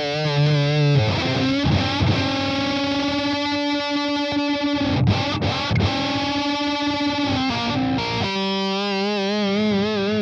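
Electric guitar played through a distortion or fuzz pedal with a clean boost in the chain: held lead notes, several with a wide, wavering vibrato.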